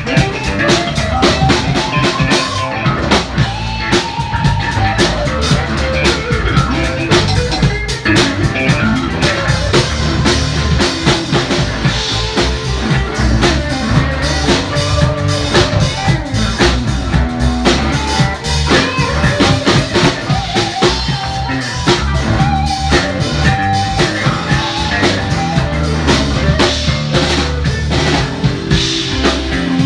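Loud band music with drum kit and guitar and a steady beat, with some singing.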